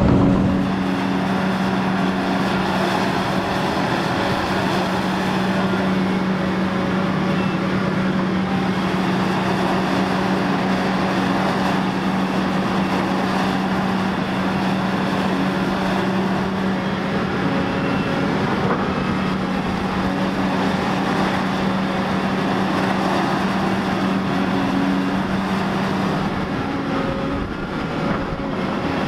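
Diesel engine of a Volvo EC950F excavator running steadily under load while digging, a constant low hum that breaks off near the end.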